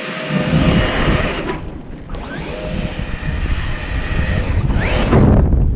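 Electric RC monster truck's motor whining at speed in two runs, each starting with a rising whine and cutting out shortly before the next. Wind buffets the microphone throughout, getting stronger near the end.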